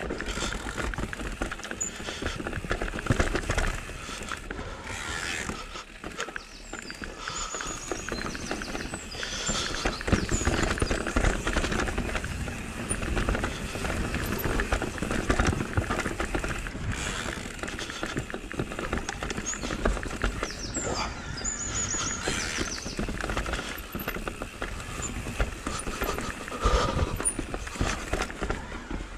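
Mountain bike riding down a rocky trail: tyres rumbling over stone slabs and roots, with the bike's chain and suspension rattling and knocking continuously, and a few short high squeaks.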